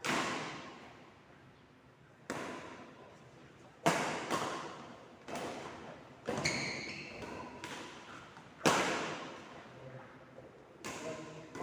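Ball and racquet hits during a rally in an echoing indoor court: about eight sharp strikes, one to two seconds apart, each ringing on in the hall. A short shoe squeak comes about six and a half seconds in.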